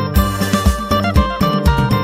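Phin, the Isan plucked lute, playing a melody over a backing track with bass and a steady beat of about two thumps a second.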